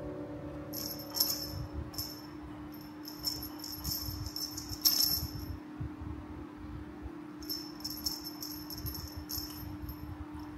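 A small bell on a cat toy jingling in three short bouts as a kitten bats and shakes it, over a steady low hum.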